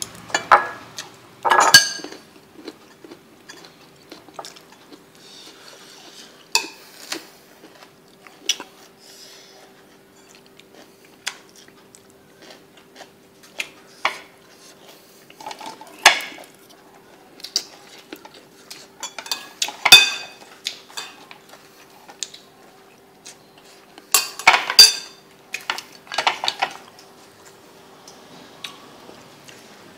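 Utensils clinking and knocking against ceramic bowls and plates during a meal: irregular sharp clinks, with the loudest about two-thirds of the way in. A faint steady hum runs underneath.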